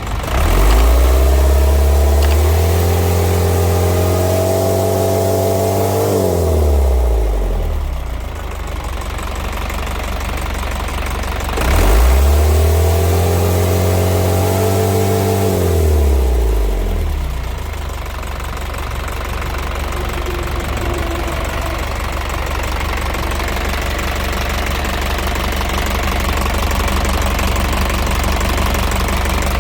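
Isuzu Elf's 4HG1 four-cylinder diesel engine revved up twice, each time held for several seconds before dropping back, then idling steadily.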